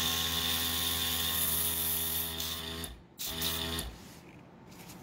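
Small airbrush compressor running with a steady motor hum while air hisses out through the airbrush in a test spray. It stops about three seconds in, runs again for about half a second, then cuts off.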